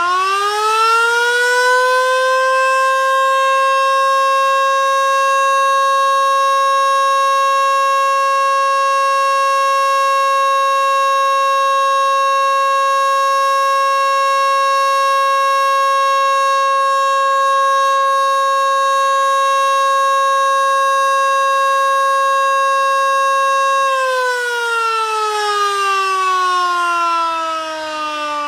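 Loud mechanical motor siren sounding the noon time signal. Its pitch rises over the first few seconds to a steady wail, holds for about twenty seconds, then winds down with the pitch falling near the end.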